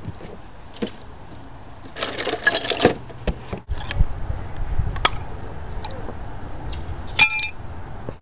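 Glass bottles clinking and rattling in a cooler as one is pulled out, then a beer bottle cap being prised off with a bottle opener: scraping and clicks, the loudest a sharp metallic click with a brief ring near the end.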